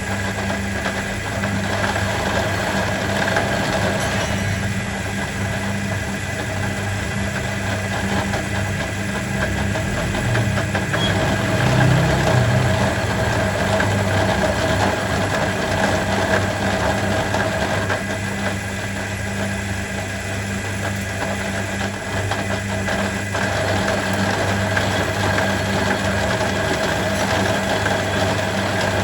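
Workshop machine running steadily with a constant hum.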